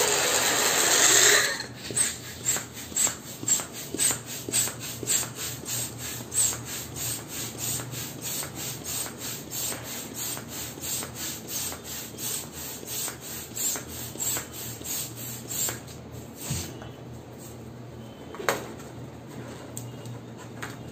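A loud rushing hiss for the first second and a half, then a hand balloon pump worked in steady strokes, about two a second, inflating a latex balloon; the strokes fade out after about sixteen seconds. One short falling squeak near the end.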